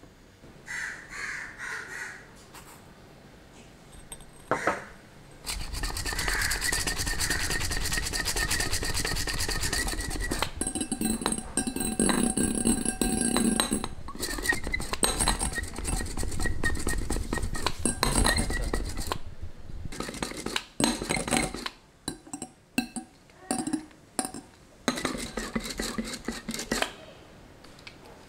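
Metal whisk beating egg whites with sugar in a glass bowl, the wires clattering fast and continuously against the glass for about fourteen seconds, then in shorter bursts with pauses near the end as the whites stiffen into meringue foam. Before the whisking, a few soft sounds of sugar tipped in from a small cup and a single click.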